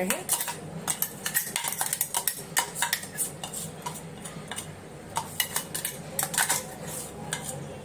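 A metal spoon scraping and tapping against a stainless-steel mixer-grinder jar and steel vessel while spinach paste is emptied out, making a run of irregular metallic clinks and scrapes.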